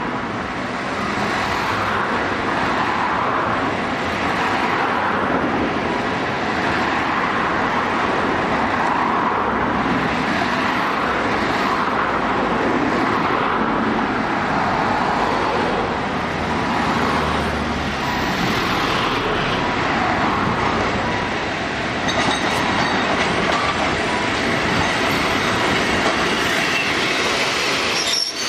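Fukui Railway 80-series streetcar running along street track toward the listener and passing close by at the end, with steady street-traffic noise around it. Faint thin squealing tones from the wheels come in over the last several seconds.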